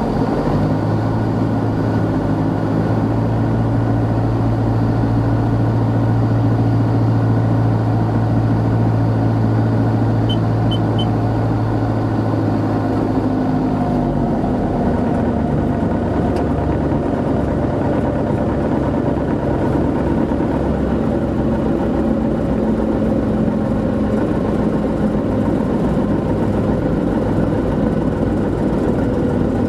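Single-engine light airplane's piston engine running steadily, its note shifting to a different steady setting about halfway through as the power is changed. Three short high beeps sound about ten seconds in.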